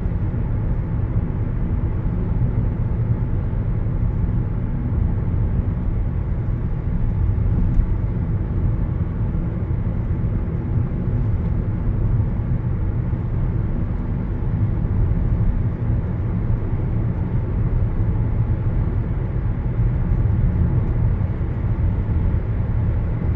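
Steady low rumble of a car driving at road speed, heard inside the cabin: tyre and engine noise that stays even throughout.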